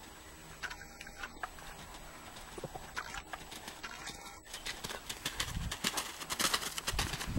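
Draft-cross horse cantering on arena sand, its hoofbeats dull thuds that grow louder and closer over the last few seconds.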